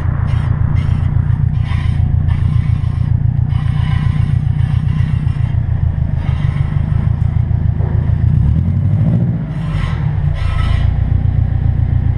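2006 Subaru WRX's front passenger-side wheel grinding and scraping as the car drives, over a steady low drone, with the scraping swelling several times. The noise comes from a failed front wheel bearing.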